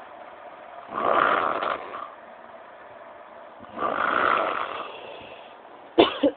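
A sleeping person snoring: two long, loud snores about three seconds apart, with quiet breathing between them. A brief, sharp, louder sound comes right at the end.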